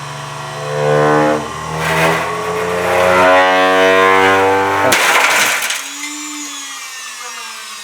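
Dyson electric motor whining as it spins a clay record up to speed. About five seconds in, the record bursts apart with a sharp crack and shattering, and the motor whine then winds down.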